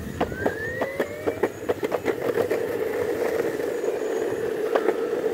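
Whine of a small electric motor rising in pitch as it picks up speed, then holding steady, with many sharp clicks and knocks over it in the first three seconds.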